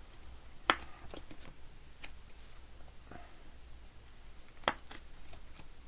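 Trading cards being handled and slid into plastic sleeves and holders: soft rustling with a few sharp plastic clicks, two of them louder than the rest.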